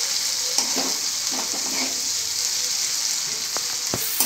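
Sliced onions sizzling in hot oil in a kadhai, stirred with a steel spoon that scrapes through them and clinks against the pan a few times near the end. They are being fried toward golden brown.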